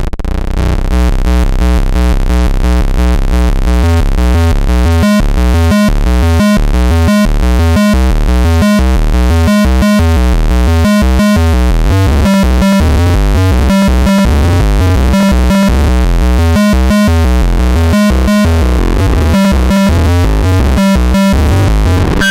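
Circuit-bent noise sequencer playing a fast, rhythmic loop of stepped electronic tones over a pulsing low bass.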